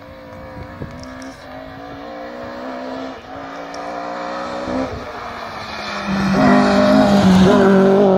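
Rally car engine approaching at speed under hard acceleration, its pitch climbing and dropping back at gear changes about three and five seconds in. It grows steadily louder and is loudest as the car passes close by near the end.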